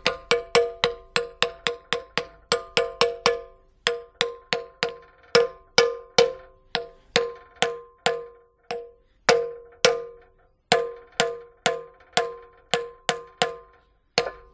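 Hammer tapping a steel bending attachment down over the drive pins of a metal-bending machine, about three blows a second at first and then slower, with a few short pauses. Each blow rings like a struck piece of steel.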